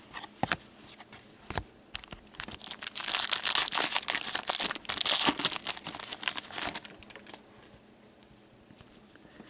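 Foil wrapper of a 2014-15 Upper Deck Masterpieces hockey card pack being torn open and crinkled for about five seconds, preceded by a couple of light clicks, then dying away as the cards come out.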